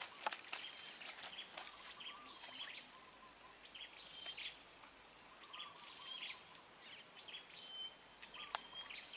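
Outdoor ambience: a steady high-pitched drone of insects, with birds giving short chirps throughout. A few sharp clicks come near the start and again near the end.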